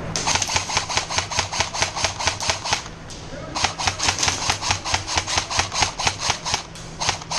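Airsoft gun firing in rapid strings of sharp shots, about eight a second, in three runs: about three seconds, a short pause, another three seconds, then a shorter run near the end.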